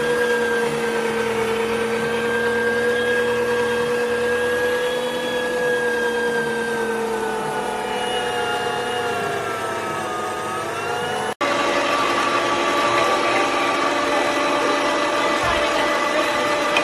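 STX Turboforce electric meat grinder's motor running with a steady whine, test-run after being reassembled. Its pitch sags around ten seconds in, then after an abrupt break it runs on at a higher pitch.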